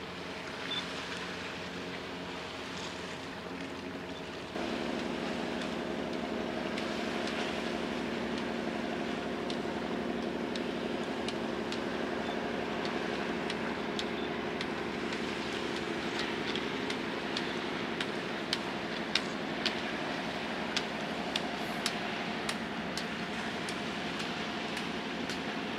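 Steady ship engine drone with several low steady tones, stepping up louder about four and a half seconds in. A run of about seven sharp clicks comes in the second half.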